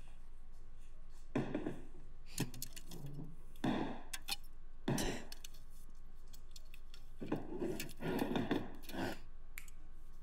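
Scattered soft thumps, knocks and rubbing from people moving about and bumping furniture and a door, about ten separate hits with a small cluster near the end.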